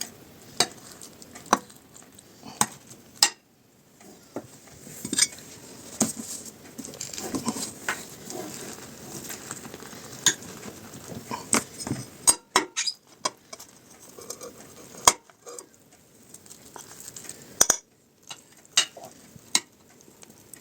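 Metal cutlery clinking and scraping against dishes in scattered sharp knocks, as a hot baked pasta casserole is cut and served, with two brief silent gaps.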